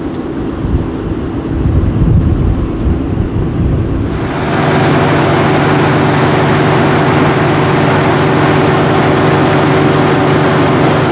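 Mercedes-AMG GT S's twin-turbo V8 running: a low, uneven rumble, then about four seconds in the sound changes abruptly to a steady drone that holds one pitch.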